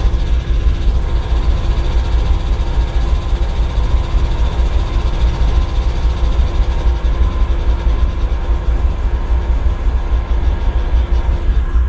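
GE ES40DC diesel-electric locomotive's twelve-cylinder engine idling with a steady, deep rumble.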